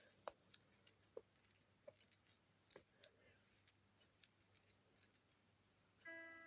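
Near silence, with faint, scattered small clicks. A chiming music tune begins near the end.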